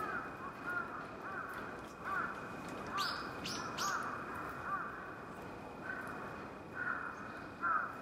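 Crows cawing repeatedly from several spots, with a small bird's three short high calls a few seconds in.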